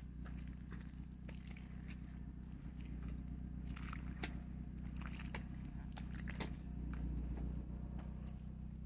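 Footsteps in deep wet mud: white sneakers squelch and suck as they sink in and pull free, in irregular steps. A steady low rumble lies underneath.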